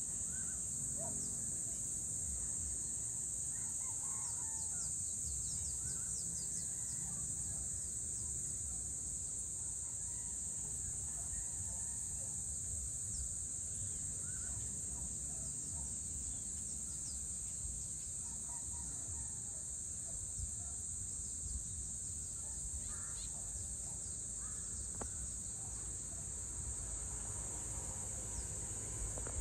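Dusk ambience: a steady high-pitched insect chorus, with scattered short bird calls and a constant low rumble of distant town noise.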